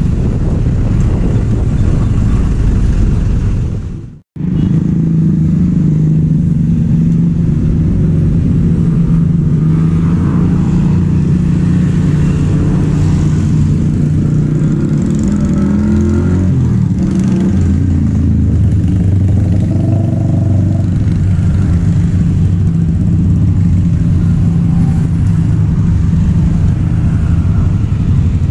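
Road traffic at a level crossing: motorcycles and cars running past, with a steady engine drone. It drops out briefly about four seconds in where the recording cuts.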